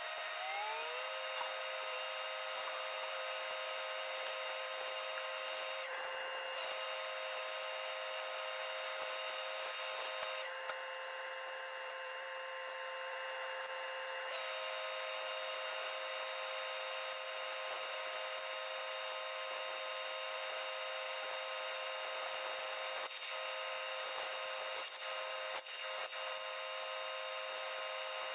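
Welding on a steel trommel drum: a steady machine whine over a hiss. Its pitch rises over the first second and then holds, with brief changes around six seconds and again from about ten to fourteen seconds.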